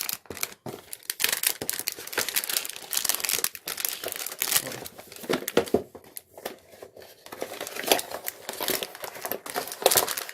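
Plastic film wrapping crinkling and rustling as a keyboard is handled and pulled out of it: irregular crackles with sharper bursts throughout.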